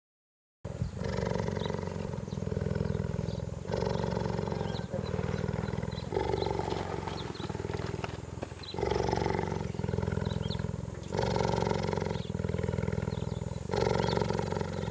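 A big cat's low rumbling vocalization, starting about half a second in and going on in repeated phrases of about a second each, with only short breaks between them.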